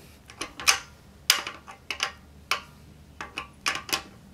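Irregular sharp clicks and clacks, about ten in four seconds, from the Black & Decker ReadyWrench being handled.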